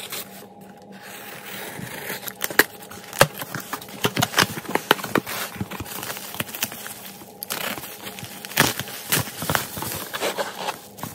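Utility knife slitting the packing tape on a cardboard box, then cardboard flaps and plastic bubble wrap being pulled aside and handled, with many quick crinkles and crackles.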